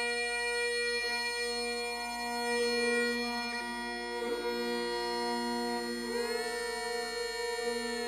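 Rajasthani folk instrumental music: a murli (been), the gourd reed pipe, sounds a steady drone under held melody notes that slide from one pitch to the next.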